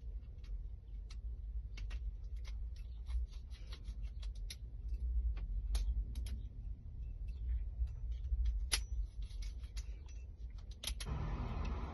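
Small metal clicks and taps at an irregular pace from a Schlage lock cylinder being worked on during a rekey, over a steady low rumble. A broader hiss joins in near the end.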